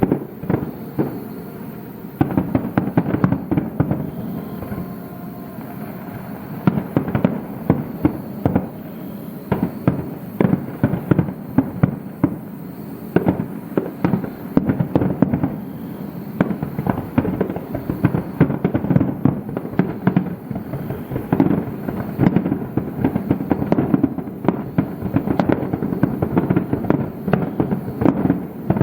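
Aerial fireworks bursting in a dense, rapid barrage: booms and crackles follow one another many times a second with hardly a pause.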